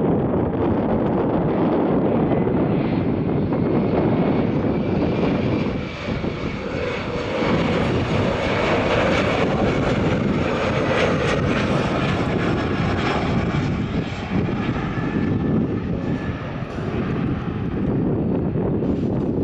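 Turbofan engines of an Embraer E-Jet airliner landing and passing low overhead: a steady jet rumble, with the engines' whine and hiss strongest about halfway through as it passes closest, then easing as it rolls down the runway.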